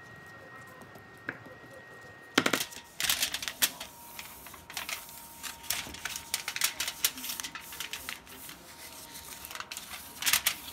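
Aluminium foil crinkling and crackling as it is pulled over and pressed around a baking dish, starting with a loud crackle about two seconds in and continuing in irregular bursts.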